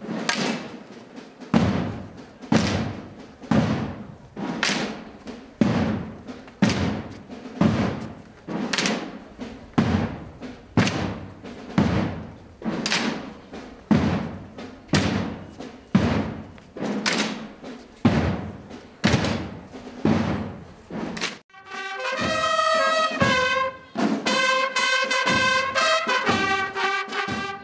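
A drum beating slowly and steadily, about one beat a second, each beat ringing on briefly. About three-quarters of the way through it stops and cornets take over, playing a call of long held notes.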